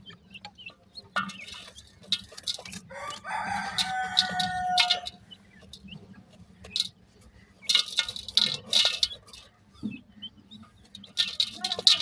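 Young grey francolins in a metal basin of dry soil: one drawn-out call about three seconds in, lasting about two seconds, with bursts of sharp clicking and scratching before and after it.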